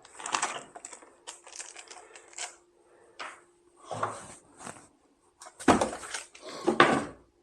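Packing material and boxed parts being handled and rummaged through: irregular rustling and handling noises, with two louder bursts in the second half.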